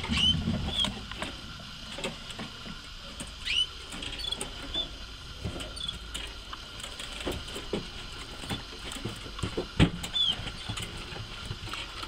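Canaries in breeding cages giving short chirps now and then, over scattered small clicks and taps, with one sharper knock about ten seconds in.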